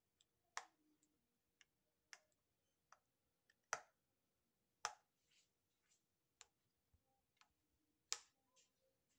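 Metal spoon clinking against a glazed ceramic bowl while eating ice cream: irregular sharp clinks, a few loud ones among fainter taps, the loudest about four, five and eight seconds in.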